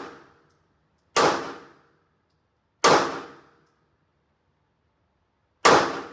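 Three pistol shots at an indoor range, each a sharp crack with a short echoing tail. They come about a second and a half apart, then nearly three seconds apart.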